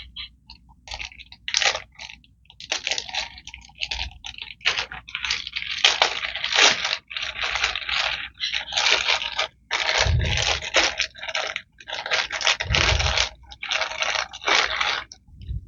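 A bag of thrifted jewelry being handled and opened: an irregular run of crinkling, rustling and scraping. Two dull low thumps come about two-thirds of the way in and again a few seconds later.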